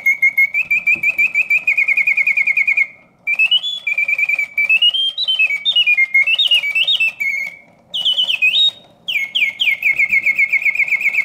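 Bellows-driven mechanical bird song from a vintage Reuge double singing bird cage automaton, playing continuously: rapid high trills alternating with rising and falling warbled phrases, with short breaks between phrases. Faint clicking from the clockwork mechanism runs underneath.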